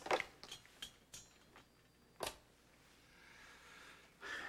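Desk telephone handset being picked up and handled: a few short clicks and knocks, the loudest right at the start and a sharp one a little over two seconds in.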